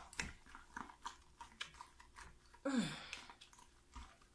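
Thick, pink-coloured hot-process soap batter being hand-stirred with a utensil in a plastic pitcher, making irregular light clicks and scrapes against the container as extra mica colourant is worked in.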